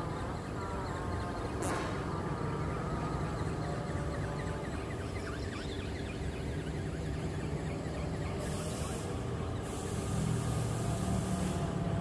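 Wind rumbling on the phone's microphone, with the faint steady buzz of the RC bird's electric motor and propeller flying overhead.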